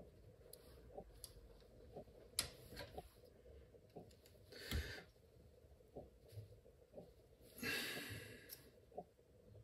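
Faint clicks and scrapes of a small screwdriver prying at the plastic casing of a Knog PWR bike-light battery, with a short rush of noise about five seconds in and a longer one near the end.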